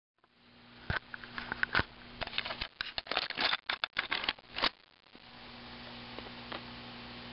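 Handling noise from the plastic battery housing on the back of a talking Big Bird toy: a run of irregular clicks and rustles for the first few seconds, then a faint steady hum.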